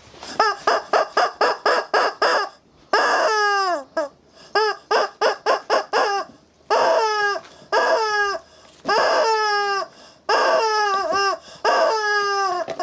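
Rubber chicken squeeze toy squawking again and again: a quick run of short squeaks, then longer squawks that fall in pitch.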